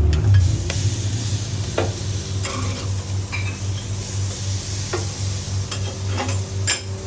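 Food sizzling as it fries, with a few light clicks of a utensil against the pan and a low pulsing hum underneath.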